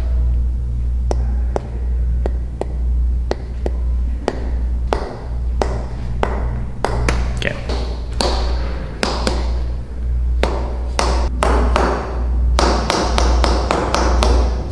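A series of sharp, irregularly spaced taps and clicks over a steady low drone, with bursts of rustling in the second half.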